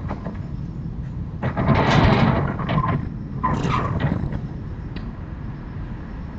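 Two loud sneezes from a woman, heard through an open window: one about a second and a half in, the second near four seconds. A steady low traffic rumble runs underneath.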